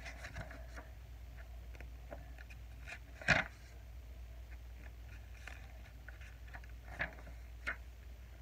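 Picture book being handled in the lap: pages and cover rustling and tapping, with one louder slap about three seconds in and two smaller ones near the end, over a low steady hum.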